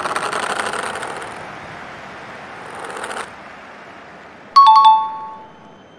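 A two-note 'ding-dong' chime, a higher tone then a lower one, rings out loudly about four and a half seconds in and dies away within a second. Before it, a crackling, rattling transition effect fades out around three seconds in.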